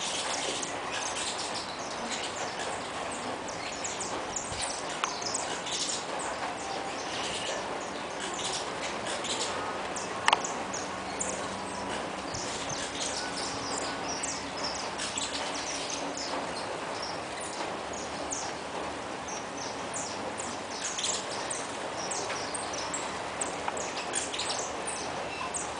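A large flock of saffron finches chirping, many short high calls overlapping without a break, with one sharp click about ten seconds in.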